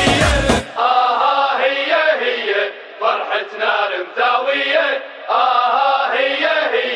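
Music cuts off about half a second in, giving way to many voices chanting together in short repeated phrases. The chanting sounds thin, with no bass.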